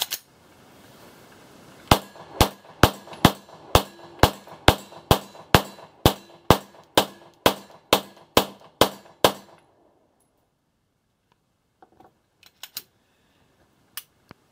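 A Glock 17 Gen4 9 mm pistol, the standard unported model, fired in a steady string of about seventeen shots at a little over two a second. The string starts about two seconds in and stops about nine seconds in, followed by a few faint clicks of handling.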